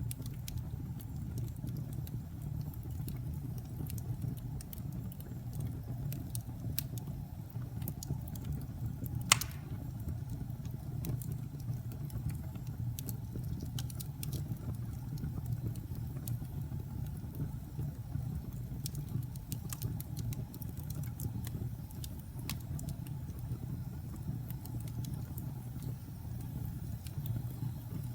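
Wood fire burning in a fireplace: a low steady rumble with scattered sharp crackles and pops, and one loud crack about nine seconds in.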